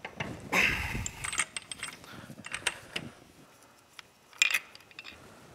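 Metal clatter of a wrench and clutch holder tool on the clutch hub of a 2008 Yamaha YZF-R6 engine as the clutch basket's main nut comes off. There is a loud rattle about half a second in, then scattered light metallic clicks, then one sharp clink a little past four seconds.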